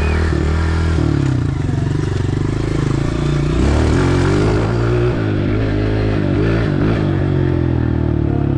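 Dirt bike engine running loud and continuously while riding, its revs rising and falling, most unsteadily in the middle.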